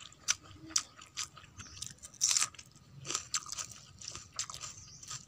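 Crisp crunching and sharp clicks of a meal of rice and fried vegetables being eaten by hand from a steel plate, close to the microphone, with a denser crunch about two seconds in.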